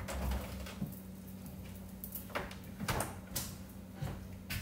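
A few light knocks and taps of items being handled and set down on a kitchen counter, over a steady low hum.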